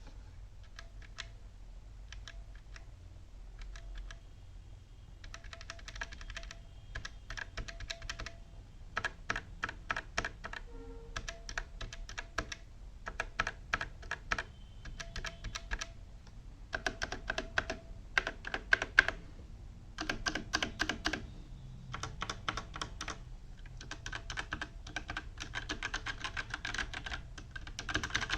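Cosmic Byte CB-GK-28 mechanical keyboard with Outemu red linear switches being typed on as a sound test. A few separate key presses come first, then bursts of fast typing from about five seconds in.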